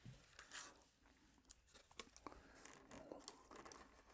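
Faint handling noises as foam model-airplane parts are moved on a workbench: soft rustling and a few light clicks, the loudest a brief rustle about half a second in.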